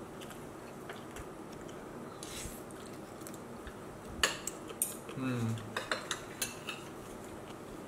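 Forks and spoons clinking and scraping against ceramic plates as people eat, with a cluster of sharp clinks in the second half. There is a brief vocal sound about five seconds in.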